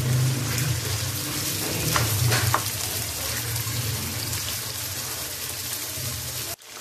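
Raw chicken pieces sizzling in hot oil in a wok, a steady hiss over a low hum, with a few light clicks of a wooden spoon about two seconds in. The sound cuts off abruptly near the end.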